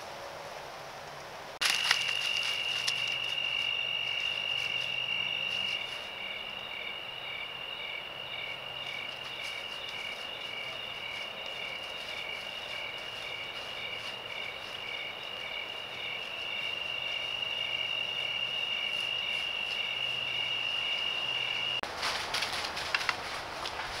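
Night insects calling: one high, steady, unbroken trill, with a second insect chirping in a regular pulse about twice a second. A few light clicks and rustles in dry leaves come where it starts, and again near the end after it stops abruptly.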